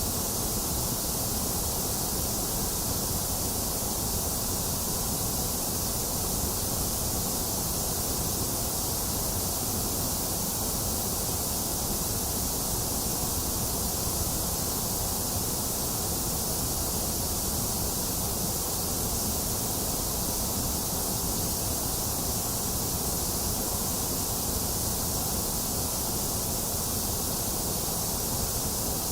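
Box fan running steadily, mixed with steady rain: an even, unbroken hiss with no thunder or other sudden sounds.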